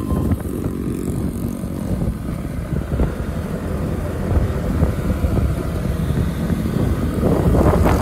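Motorcycle being ridden on the road, its engine running under a steady rush of wind on the microphone. The wind noise grows louder about seven seconds in.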